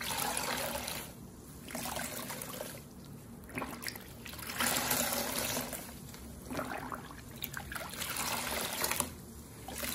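Two porous bath sponges squeezed again and again in a basin of plain rinse water, water gushing and trickling out of them with each squeeze, about five times. This is the plain-water rinse that clears the last suds from the sponges.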